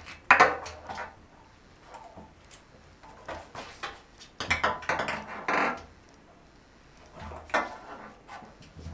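A ping pong ball clicking and rattling as it bounces and skitters across a bathtub floor, batted by a cat's paws. It comes in several bursts of quick clicks, the loudest about a third of a second in, others between about three and a half and six seconds, and again near the end.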